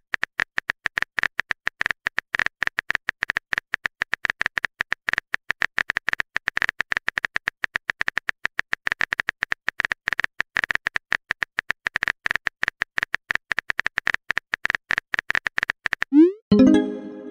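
Rapid, uneven clicking of a texting app's keyboard-typing sound effect, many taps a second. Near the end comes a short rising notification tone as a message is sent.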